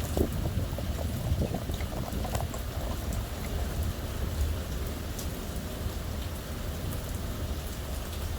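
Steady rain falling in a thunderstorm, with scattered drops ticking close by over a low rumble.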